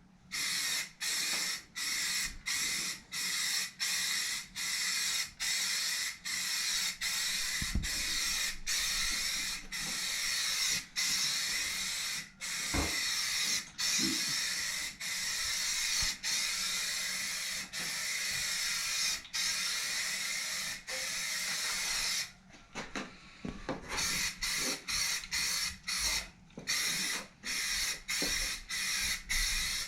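Aerosol primer spraying, a hiss that stops and starts in quick, even bursts as the nozzle is pressed and released pass after pass, with a longer pause a little over two-thirds of the way through.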